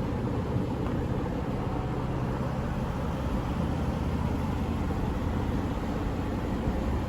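2015 Aston Martin Vanquish's naturally aspirated 6.0-litre V12 idling steadily, with no revving.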